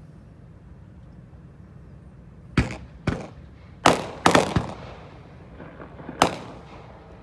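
Six sharp bangs at uneven intervals, each with a short echoing tail, over a steady low hum.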